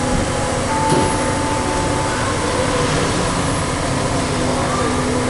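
Steady, loud machinery noise in a workshop, with a faint steady whine about a second in that lasts about a second.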